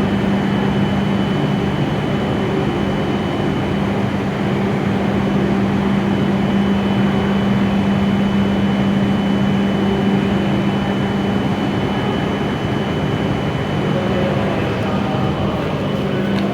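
Steady hum of a stationary W7 series Shinkansen train's onboard equipment, with a low steady tone and a fainter high whine. The low tone cuts off near the end.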